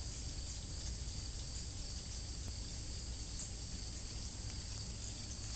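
Steady garden ambience: a constant high-pitched chirring of insects over a low rumble.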